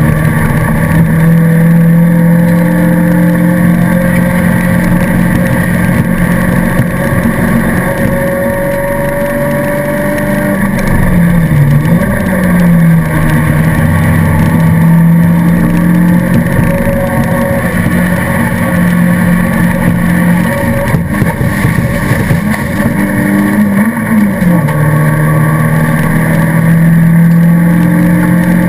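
Racing car's engine heard from inside the stripped cabin, running hard at a steady high pitch for long stretches. The note briefly dips and recovers about eleven seconds in, and shifts again near twenty-four seconds, as with lifting off or a gear change, under constant road and wind noise.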